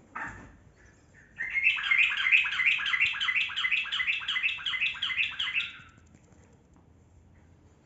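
Yellow-vented bulbul (trucukan) singing one long, fast run of chirping notes, about five a second, lasting about four seconds. A brief knock comes just before it.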